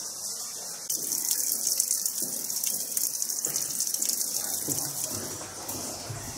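Water splashing and trickling down a wet, mossy cave wall: a steady hiss that comes in suddenly about a second in and eases off near the end.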